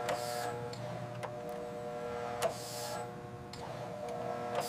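Small machine humming steadily, with a sharp click and a short hiss of air repeating about every two and a half seconds, as the watch case is sealed.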